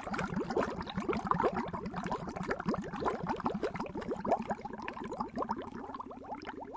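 Water bubbling in a dense, continuous stream of bubbles, each a short blip sliding up in pitch.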